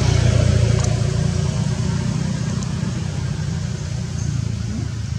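An engine running steadily, a low rumble.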